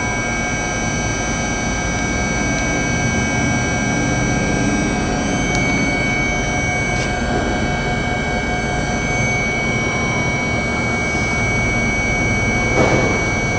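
Okuma & Howa Millac 438V CNC vertical machining center running under power: a steady machine hum with several steady high-pitched whining tones. There is a brief whoosh about a second before the end.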